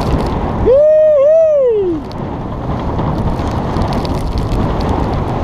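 Strong wind buffeting the microphone and water rushing past a small sailboat in a fresh breeze. About a second in, a single short wavering cry rises, dips and falls away.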